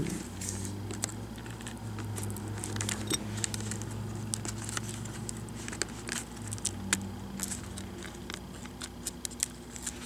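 Scattered small clicks and crinkles of fingers working at a laptop's display cable connector and the adhesive tape holding it to the motherboard. A low steady hum runs underneath and stops about seven seconds in.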